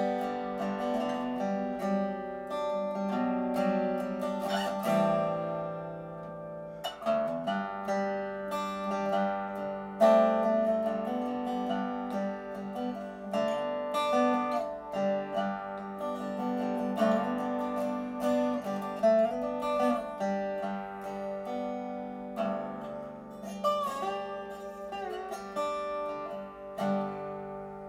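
Music played on plucked strings: a continuous run of picked notes and chords that ring and fade, with a softer stretch about six seconds in.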